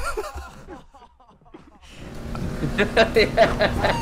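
People's voices, with a quieter lull about a second in and denser, louder voices again from halfway.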